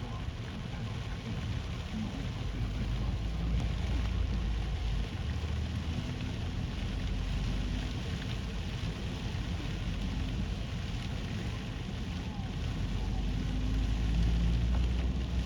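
Typhoon storm of wind-driven, sideways rain: a steady hiss with a strong, gusting low rumble that swells near the end.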